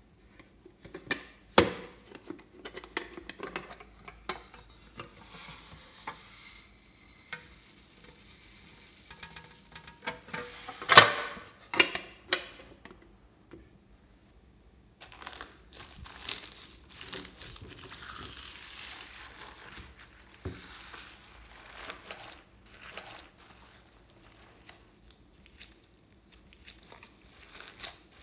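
Hands handling a plastic container over a tray of slime, with a few sharp plastic clicks, the loudest about eleven seconds in, and a soft pour of small foam beads. From about halfway on, hands squish and mix glossy slime loaded with foam beads and sprinkles, a steady crackling and squelching.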